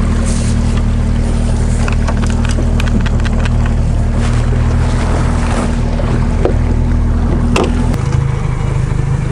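Mercury 60 outboard motor running steadily, with a few sharp clicks over it; about eight seconds in its note shifts lower.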